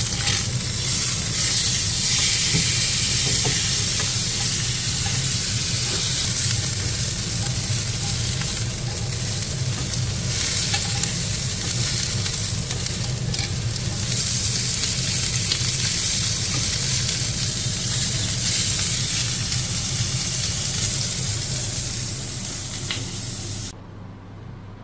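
Food sizzling loudly as it fries in a hot pan, with a few light clicks of stirring. The sizzle cuts off suddenly near the end.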